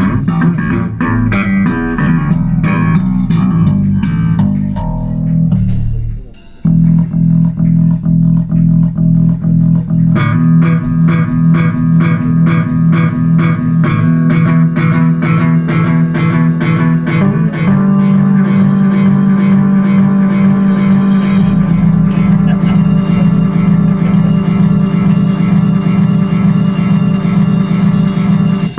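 Recorded music with plucked guitar and bass guitar, played back loud over a JBL hi-fi loudspeaker system. The music drops away briefly about six seconds in, then returns with a steady run of repeated notes over a strong bass line.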